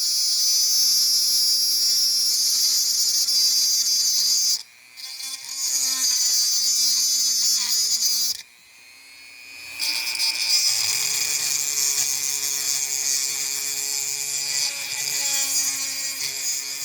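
Dremel rotary tool running at high speed, cutting through a trace on a small circuit board. It is a steady whine that stops briefly twice, about four and a half seconds and eight and a half seconds in, then runs again.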